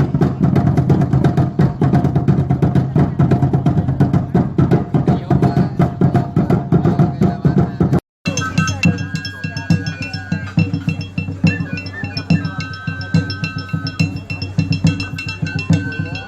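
Music driven by a fast, dense percussion beat. About eight seconds in it cuts off briefly and resumes with high held tones over the same kind of beat.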